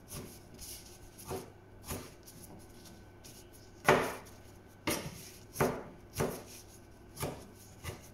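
Chef's knife chopping tomatoes on a cutting board: about ten sharp strikes at an uneven pace, with a pause in the middle and the loudest strike about four seconds in.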